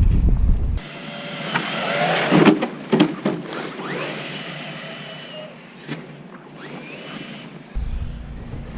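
Electric RC monster truck's motor whining up in pitch several times as it accelerates, with a few sharp knocks, and wind buffeting the microphone at the start and end.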